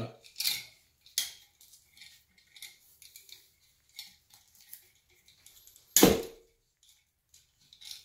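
Small clicks, taps and rustles of hands working at a wired wall switch, wrapping electrical tape around the terminals and moving the metal-strapped switches about. One sharp knock with a short ring about six seconds in is the loudest sound.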